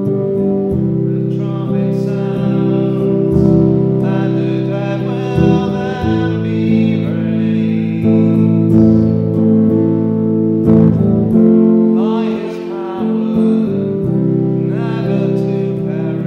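A man singing a worship song while playing guitar: a sung melody over steadily strummed chords.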